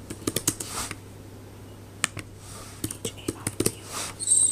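Typing on an Acer Chromebook 11 laptop keyboard: scattered bursts of key taps. A brief high squeak about four seconds in is the loudest sound.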